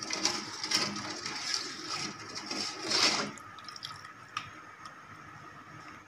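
Ladle stirring soup in a stainless steel pot: liquid sloshing and the ladle scraping the pot in repeated strokes about twice a second, stopping a little after three seconds in. A single light click follows about a second later.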